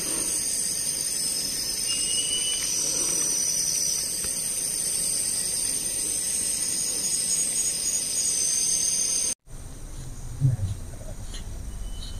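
Rainforest insects shrilling in a steady high-pitched drone. It cuts off abruptly about nine seconds in, giving way to quieter forest sound with faint, evenly spaced high chirps.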